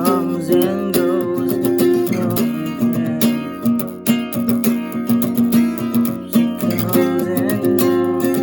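JCraft Troubadour Taka Mini, a small all-mahogany acoustic travel guitar, being strummed in chords with a steady rhythm.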